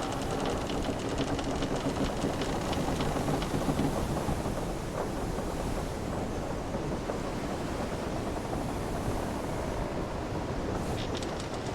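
Sailing-ship ambience: wooden hull timbers creaking over a steady rush of wind and sea waves, with small creaks and ticks clustered in the first few seconds and again near the end.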